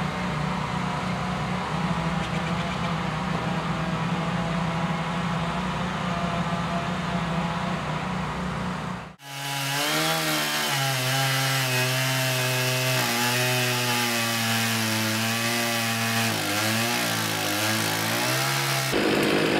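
A steady engine drone, then, after a cut about nine seconds in, a STIHL chainsaw cutting into the base of a large fir trunk, its engine pitch sagging and wavering as the chain bites into the wood.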